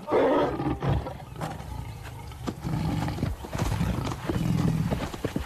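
A lioness snarls with a short rough burst at the start. Then come the heavy hoofbeats of a galloping giraffe: a run of low thuds a fraction of a second apart.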